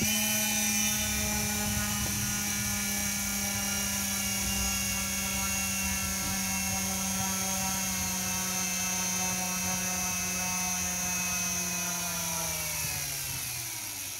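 Small electric model-airplane motor spinning a two-blade propeller under a MOSFET capacitor timer: it starts suddenly and runs with a steady high whine. About twelve seconds in, it slows with falling pitch and winds down as the timer's capacitor runs out and the switch turns the motor off.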